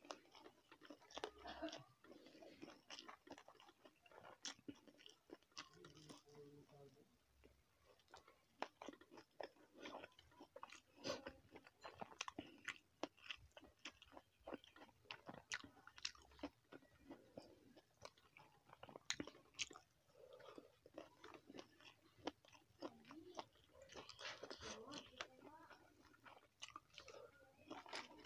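A person chewing and biting food, with many short, irregular crunches and mouth clicks.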